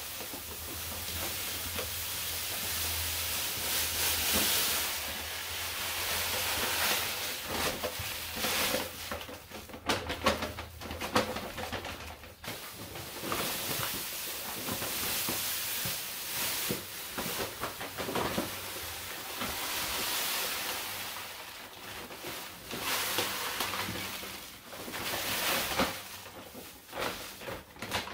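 Malted grain pouring from paper sacks into a stainless-steel mash tun: a steady rushing hiss that swells and fades as each sack is tipped and emptied. There are a few sharp knocks around the middle.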